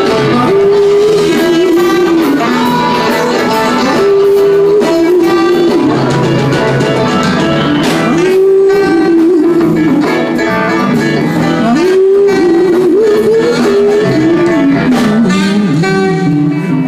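Live band of several electric guitars, keyboard and drums playing a loud blues number. A lead line repeats the same phrase about every four seconds over the chords and beat.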